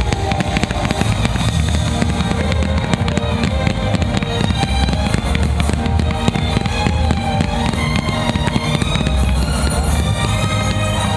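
Consumer fireworks going off in rapid bursts of crackles and bangs over loud music with a heavy bass, the soundtrack of a pyromusical display.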